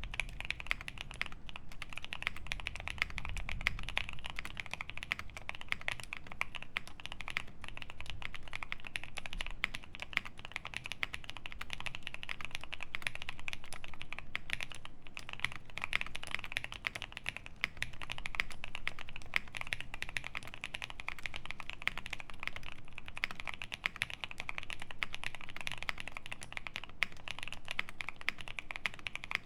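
Continuous typing on a QK65 mechanical keyboard with lubed Paco switches, a POM plate, GMK keycaps and foam dampening in the case: a dense, unbroken stream of keystrokes.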